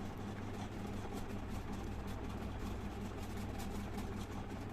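Steady low background hum, like a fan or small motor running, with faint scattered ticks.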